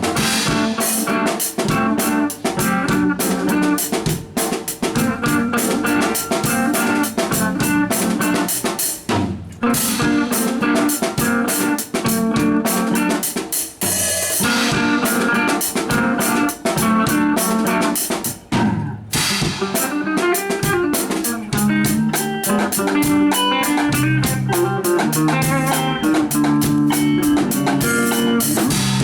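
Music with a drum kit beat and guitar, playing steadily with short breaks in the beat.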